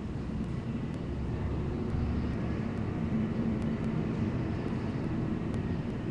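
Steady low rumble of distant city traffic, swelling slightly in the middle, with no falcon calls.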